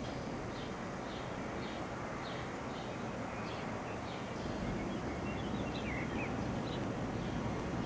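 Low, steady rumble of an FS class 245 diesel shunting locomotive, growing a little louder about halfway through. Over it a bird chirps again and again, roughly every half second.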